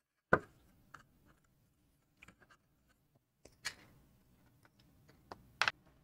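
Short, sharp clicks and knocks from hands handling a small USB hub and pressing its front strip back onto the case. Loud clicks come just after the start, about halfway, and twice in quick succession near the end, with faint rubbing between them.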